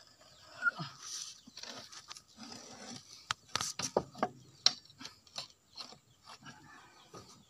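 Irregular metallic clinks, knocks and scraping of a hand wrench being fitted to and worked on the end-cap bolts of a Hitachi EX120 excavator's track roller.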